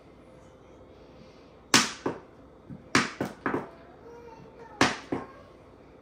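Plastic squeeze bottle of thick honey being squeezed hard, giving sharp pops and crackles in three quick groups, seven in all, as the honey is slow to come out.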